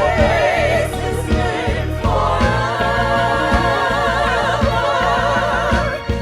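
Christmas concert music: voices singing with vibrato over a band with steady bass and a beat, a new sung phrase entering about two seconds in.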